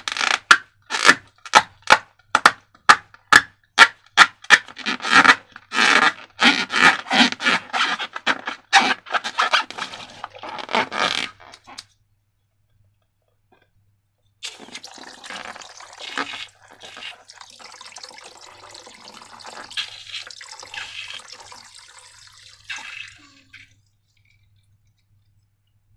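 Slime being worked in a container. A run of sharp, sticky squelches and scrapes comes about two to three a second for the first eleven seconds. After a pause of a couple of seconds, a quieter, continuous squishing churn follows.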